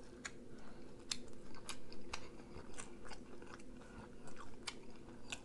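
A person chewing food with the mouth close to the microphone, a run of short sharp mouth clicks at an uneven pace, a few every second.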